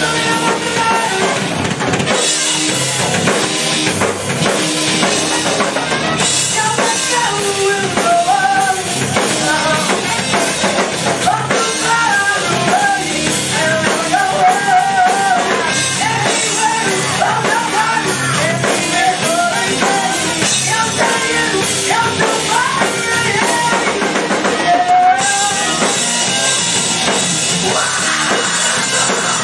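Live rock band playing loud: drum kit, bass guitar and electric guitar, with a man's vocals into a microphone over most of it.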